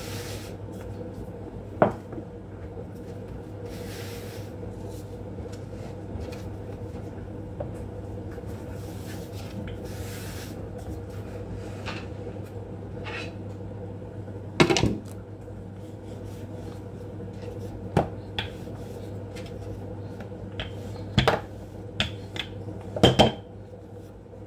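Kitchen handling sounds over a steady low hum: a few sharp knocks and clatters of utensils or cookware set down on a counter, the loudest about two seconds in, near the middle and near the end, with soft rubbing between them.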